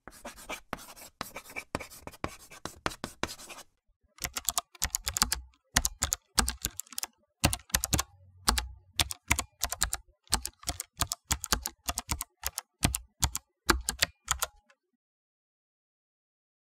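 Typing on a computer keyboard: quick runs of key clicks with a short break about four seconds in, stopping about two seconds before the end.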